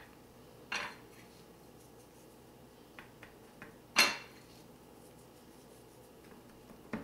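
Light clinks of ceramic dishes handled by hands: one short clink a little under a second in, a few faint ticks, then a sharper, louder clink about four seconds in, as fingers reach into a small ceramic spice saucer.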